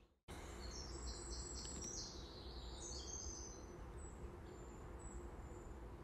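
Wild birds singing and chirping: a busy run of short high notes for the first few seconds, then a few thin high calls, over a faint low rumble.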